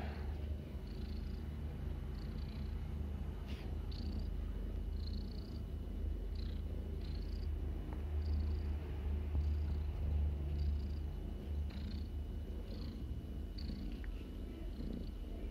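Domestic cat purring steadily while being stroked, a continuous low rumble, with faint short high-pitched sounds every second or so.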